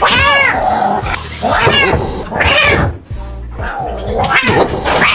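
A cat meowing repeatedly, about four drawn-out calls that rise and fall in pitch, over background music.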